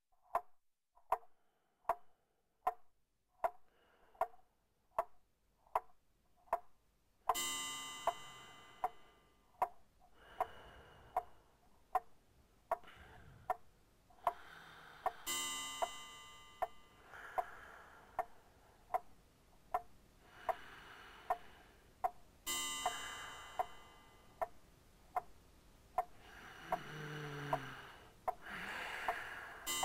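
Steady ticking, about four ticks every three seconds. From about seven seconds in, swells of hissing sound with ringing tones rise and fade over the ticking every few seconds.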